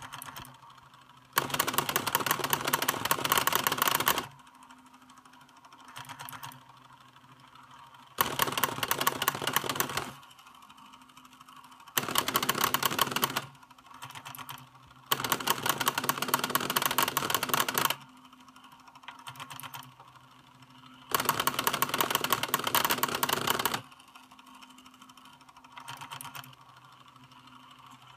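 Sega SP-400 printer plotter (ALPS four-pen plotter mechanism) running its self-test, drawing rows of characters: the pen-carriage and paper-feed motors chatter in fast, buzzing runs of two to three seconds, five of them, with short quieter bursts in the pauses between.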